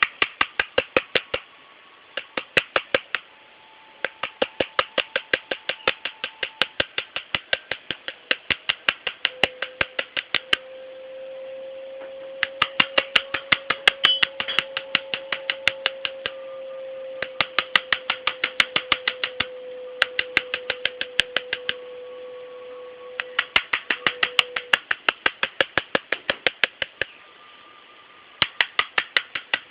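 A bird making runs of rapid sharp clicks, about eight a second, each run lasting one to three seconds with short pauses between. A steady hum-like tone runs under the clicks through the middle of the stretch.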